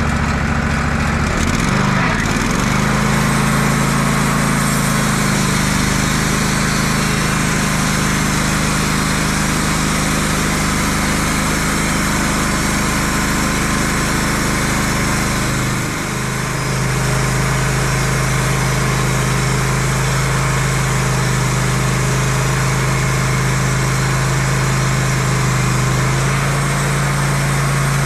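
Wood-Mizer portable band sawmill running steadily, its engine hum under a wide hiss of noise. The engine's pitch dips about two seconds in, and pitch and level drop briefly about sixteen seconds in.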